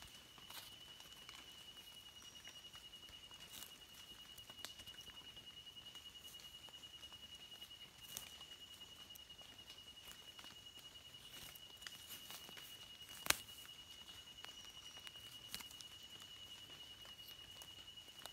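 Faint clicks and rustles of a small knife cutting wild mushrooms out of soil and leaf litter, with one sharper click about 13 seconds in. A steady, high-pitched fluttering trill runs underneath throughout.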